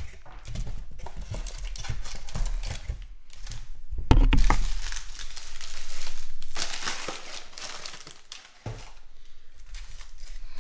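Trading card pack wrapper crinkling and tearing as a pack is opened by hand, with a thump about four seconds in.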